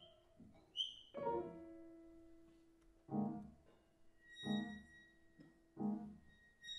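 Jazz piano playing slow, sparse chords, each struck and left to ring out, about one every one and a half seconds. A thin, steady high tone comes in about four seconds in and holds under the chords.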